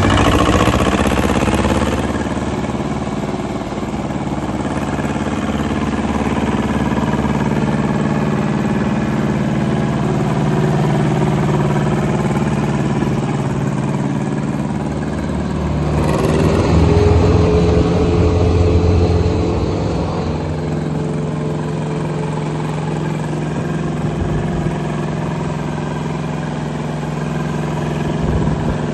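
Lombardini diesel engine of a 2001 Pezzolato Master 14 tracked wood chipper running steadily. About halfway through, the engine note changes: it gets louder for a few seconds and a steady whine joins it.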